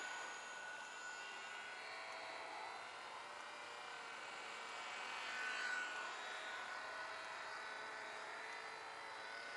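Faint, steady whine of a ParkZone ultra-micro P-51 Mustang RC plane's small electric motor and propeller in flight, swelling a little about five and a half seconds in.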